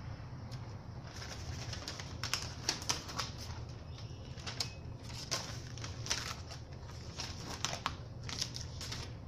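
Irregular crinkling and light tapping clicks, scattered unevenly and busiest in the middle, over a steady low hum.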